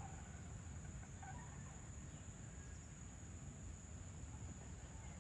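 Evening chorus of insects: a steady, high-pitched, continuous trill over a low rumble, with a few faint chirps in the first second or so.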